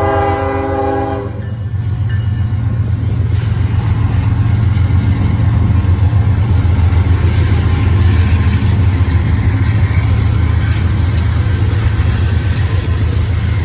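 A multi-chime locomotive horn sounds and cuts off about a second in, then the freight train's lead GE diesel locomotives, an ES44DC and a C44-CW, run past with a loud, steady low engine rumble.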